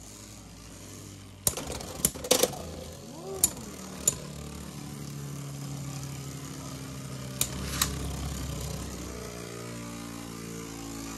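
RhinoHorn and Viper Tail Beyblade X tops spinning together in a plastic stadium, giving a steady whir. They clack sharply against each other several times in the first four seconds and twice more about eight seconds in. Near the end the whir slides down in pitch as the tops lose spin.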